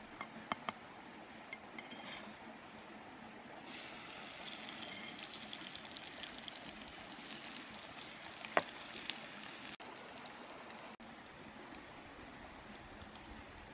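A knife tapping a few times on a flat stone, over the steady rush of a shallow stream. From about four seconds in, a crackling sizzle of oil frying in a pan over a wood fire, with one sharp clink past the middle.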